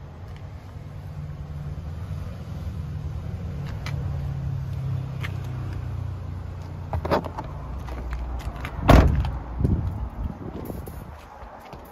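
Peugeot Partner van's driver's door being shut with a heavy thud about nine seconds in, after a sharper knock a couple of seconds before, over a low rumble.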